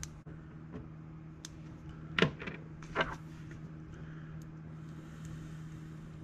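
Small RC differential parts being handled and fitted together by hand: a few light clicks, then two louder clacks about two and three seconds in, over a steady low hum.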